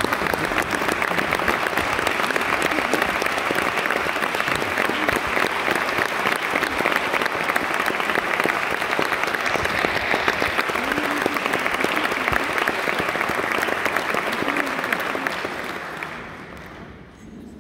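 Concert audience applauding in a large hall, with one pair of hands clapping close by; the applause is steady, then dies away over the last two seconds or so.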